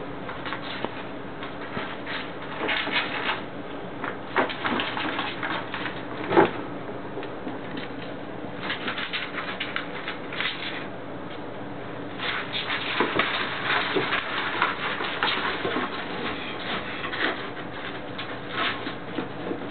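Two ferrets playing, with bursts of rapid soft clucking (dooking) and their claws scrabbling on a wooden floor and in cardboard tubes. A single louder knock about six seconds in.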